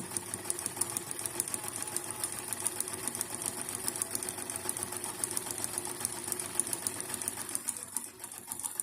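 Brother Riviera 110 domestic sewing machine running steadily, sewing a zigzag stitch with rapid, even needle strokes: a test seam after its thread-tension wheel has been adjusted.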